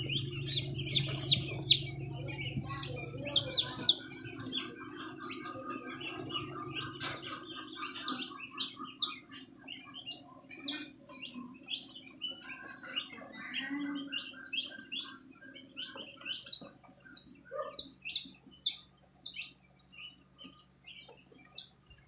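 A brood of young quail and chicken chicks peeping, a continuous run of short high peeps several times a second. A low steady hum sits under the first several seconds.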